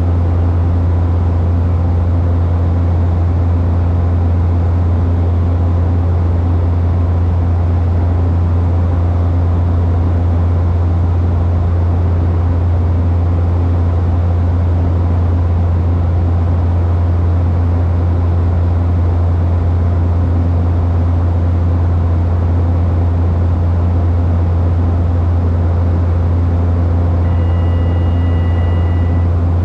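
Steady, loud propeller and engine drone inside the cabin of a Cessna Caravan single-engine turboprop in flight, with a low hum beneath it. Near the end a faint high two-note tone sounds for about two seconds.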